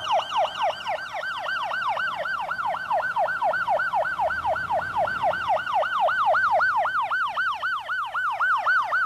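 Ambulance siren in its fast yelp mode: a loud wailing tone sweeping quickly up and down, about four to five times a second.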